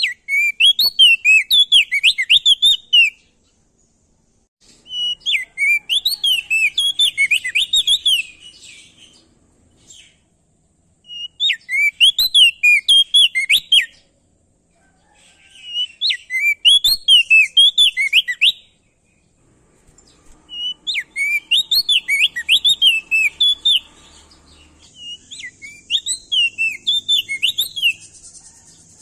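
A crested heleia (opior jambul, also called prenjak daun) sings loud phrases of rapid, fluttering up-and-down whistled notes. The phrases last about three seconds each and repeat six times, with pauses of about two seconds between them.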